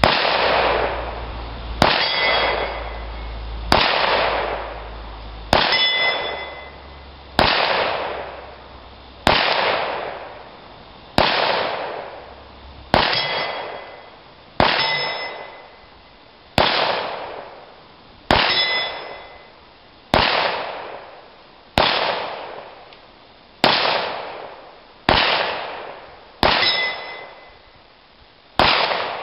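Glock 17 9mm pistol fired at steel targets in a slow, steady string, about one shot every two seconds, sixteen or so in all. Each shot is followed by the clang of the hit steel plate ringing and fading away.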